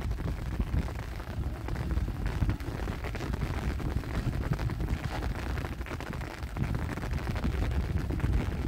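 Wind buffeting the microphone: a steady low rumble that swells and dips with the gusts.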